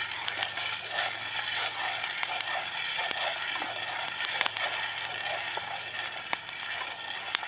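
Coffee beans rattling and scraping in a camp pan as they are stirred with a wooden spoon, with sharp, irregular pops scattered throughout: the beans going through first crack during roasting.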